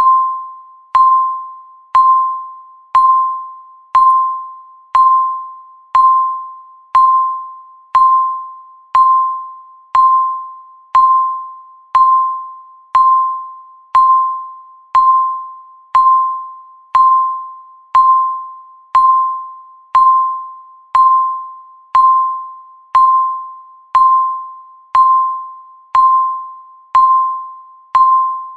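Countdown timer's tick sound: a single ringing electronic ding, one a second, each struck sharply and fading away before the next.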